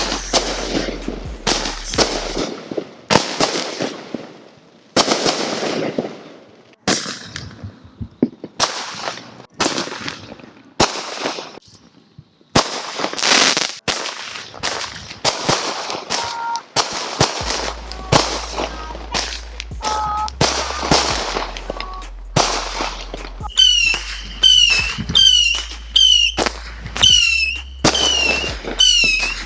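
A consumer firework cake, Patriot's 'Be the King', firing shot after shot: sharp launches and bursts come every half second or so, thinning out briefly in the middle. In the last several seconds each shot carries a short whistle falling in pitch.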